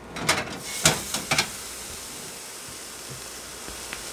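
New York strip steak sizzling on a preheated steak pan in an air fryer oven at 500°, a steady hiss that shows the pan is hot enough to sear. A few sharp metallic clicks of tongs and the pan come in the first second and a half.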